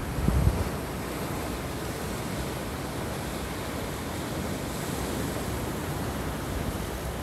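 Sea surf washing steadily over a rocky shore, a continuous rushing hiss. In the first half second, low gusts of wind buffet the microphone.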